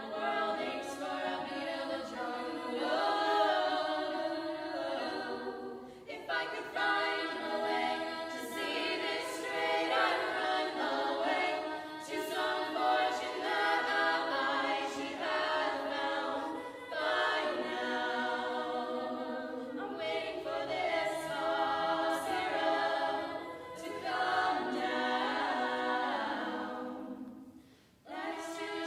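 All-women's a cappella group singing a pop song, several voices layered with no instruments, with brief breaks between phrases and a short drop near the end.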